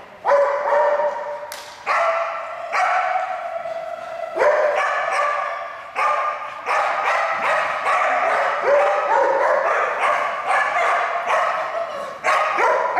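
A dog barking over and over, about a bark a second, each high bark ringing on in the echo of a large indoor hall.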